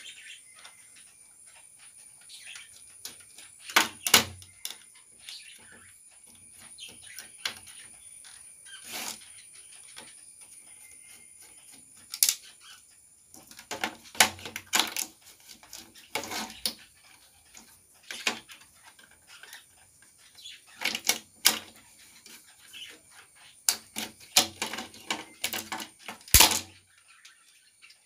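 Clicks, knocks and light rattles of a satellite receiver's metal case and circuit boards being handled and taken apart by hand, with sharper knocks about 4 s in and near the end.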